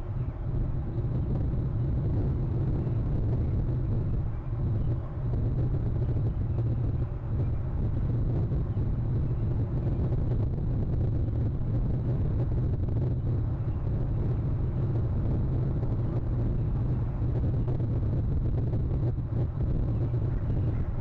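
Steady low rumble of outdoor background noise, even throughout, with no distinct calls or knocks.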